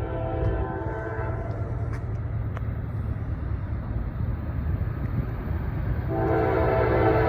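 A freight locomotive's air horn blows a chord for the crossing and stops about a second in. The low rumble of the approaching train carries on, and the horn sounds again about six seconds in.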